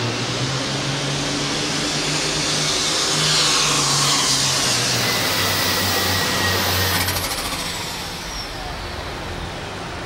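John Deere 5020 super farm pulling tractor's diesel engine running flat out as it drags the weight-transfer sled, loud and steady. About seven seconds in, the engine note drops and the noise falls away as the pull ends and the tractor comes off the throttle.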